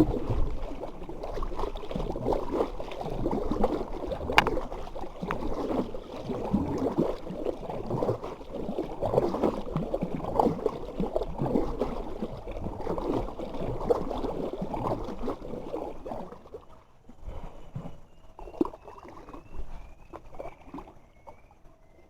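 Water splashing and sloshing irregularly, as around a small boat on the river, dying down about three-quarters of the way through. A few faint, high, repeated chirps come near the end.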